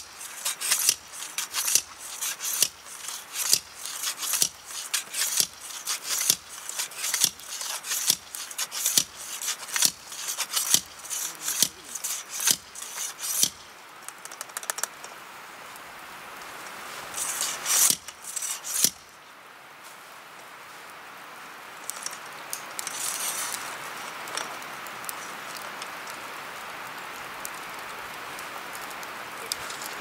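Pile-driver lantern pole being driven into the ground: the sliding upper tube is lifted and dropped onto the spike, clanking metal on metal about twice a second. The strokes stop about halfway through, a few more clinks follow, and then only a steady background hiss remains.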